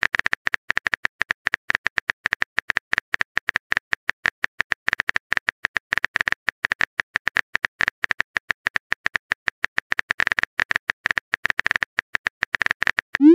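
Phone keyboard typing sound: rapid, even taps, about eight to ten a second, as text is typed into a messaging app.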